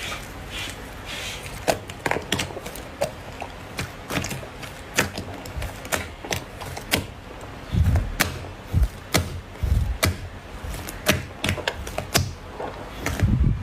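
Slime being pressed and squished by hand, giving a run of irregular sharp crackling clicks, several a second. It is broken by a few low, heavy squelching thuds near the end.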